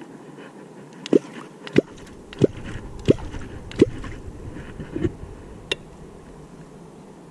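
Catfish clonk (vábnička) being struck into the river: about five sharp watery plops roughly two-thirds of a second apart, then two fainter ones near the end. This is the call used to draw catfish up to the bait.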